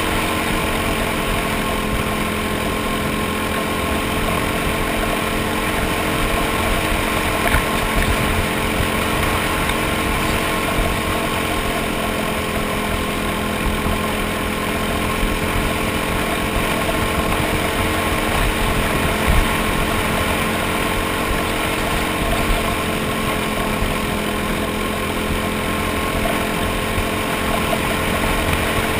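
Racing kart engine running hard and steady, heard on board, its pitch rising and falling only slightly, with a haze of wind and track noise over it.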